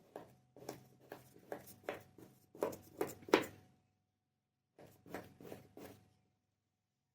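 Kinetic sand being worked by hand: a run of short, crisp crunching strokes, about two or three a second, pausing for about a second midway before a few more.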